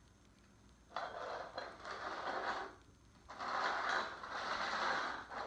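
Small upside-down terracotta flower pots being slid and shuffled across a hardwood floor, shell-game style: a rough scraping and grinding in two stretches, the first about a second in and a louder one from about three seconds in.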